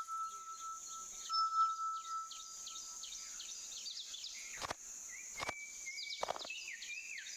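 Forest ambience of many quick, falling bird chirps over a high, steady insect-like hiss, with a long held chime-like tone that fades about three seconds in. Two sharp clicks follow, then short whistled notes.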